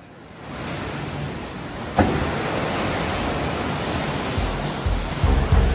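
Ocean surf washing onto the beach, a steady hiss of breaking waves that swells in and then comes in suddenly louder about two seconds in. Low bass thumps of music start near the end.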